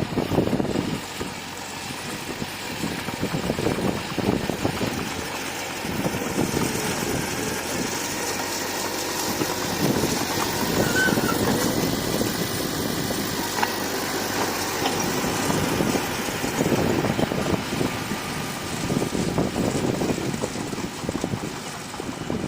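Bulldozer's diesel engine running at work, its sound swelling and easing every few seconds as the load changes.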